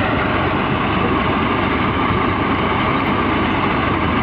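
Tractor engine running steadily while towing a trolley of paddy along a road, a continuous loud drone with road noise and no change in pace.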